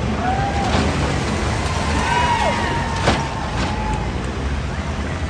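Off-road race truck engine running, a steady low rumble, with one sharp knock about three seconds in.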